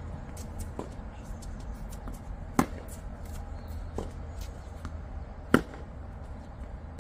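Tennis rally on a hard court: two loud racket strikes on the ball about three seconds apart, with fainter knocks of the ball between them, over a steady low rumble.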